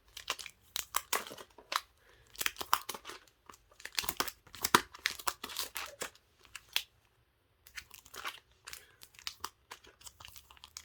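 Photo tickets and other small paper goods crinkling and rustling as they are handled and flipped through, in quick irregular bursts, with a short pause about seven seconds in.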